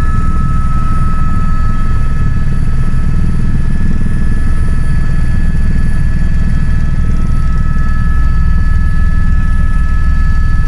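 Helicopter engine and rotor heard from inside the cabin in flight: a loud, steady low rumble with a constant high whine over it.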